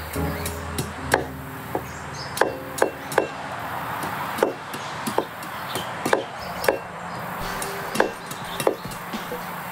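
A series of sharp, irregularly spaced knocks, about a dozen, like chopping or striking on wood, over quiet background music.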